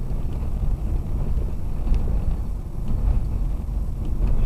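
Subaru Forester driving on a dirt road, heard from inside the cabin: a steady low rumble of tyres on dirt and engine, with a few faint ticks.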